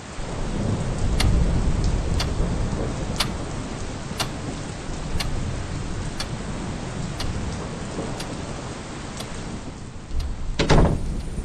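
Steady rain with low rumbling thunder, over a wall clock ticking once a second. Near the end a single loud crash breaks in.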